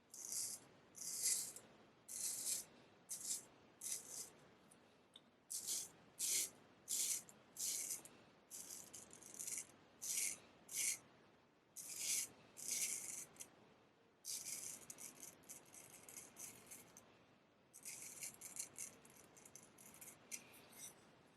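Straight razor scraping through lathered beard stubble in a series of short strokes, each a brief crisp rasp, with a quicker run of short strokes near the end.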